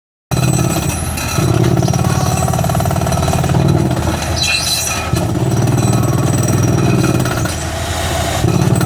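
CS ROCKIT 250RD multi-purpose drilling rig running, its engine and drilling machinery giving a fast, hammering rhythmic pulse that swells louder in stretches. The sound starts abruptly, and there is a short hiss about four and a half seconds in.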